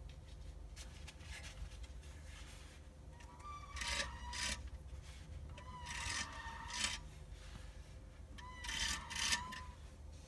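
A strange squealing, rubbing sound from a TF-80 automatic transmission. It comes three times, each lasting about a second and a few seconds apart, with a held tone over a steady low hum.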